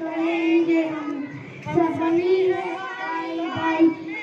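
Children singing a Hindi song together, holding long notes.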